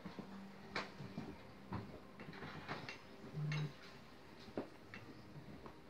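Light clinks and taps of porcelain teaware and a kettle on a tea tray during gongfu tea brewing, scattered about once a second, with a short low hum about three and a half seconds in.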